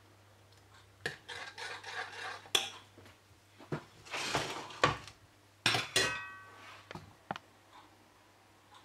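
Metal ladle clinking and scraping against a stainless steel saucepan of cream sauce: a string of light taps and short scrapes, with one louder clink about six seconds in that rings briefly.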